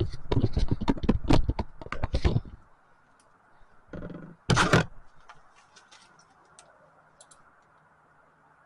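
Rapid mechanical clicking and ticking from an e-bike's rear drivetrain while it is being shifted to the highest gear, stopping about two and a half seconds in. A couple of short louder clacks follow a few seconds later, then a few faint ticks.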